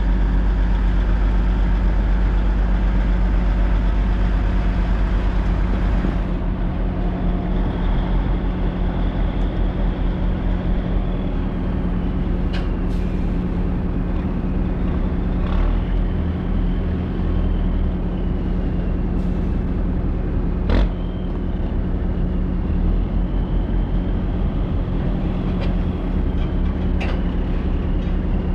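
Heavy diesel engine of logging equipment running steadily, with a faint whine that rises and falls and a few sharp knocks or clanks.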